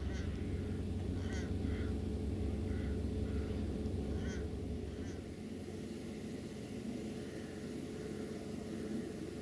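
Birds giving short calls, about seven in the first five seconds, then falling quiet, over a low steady rumble.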